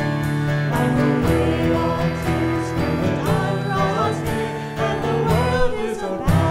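A hymn performed live, with voices singing over guitar-led accompaniment and a steady beat.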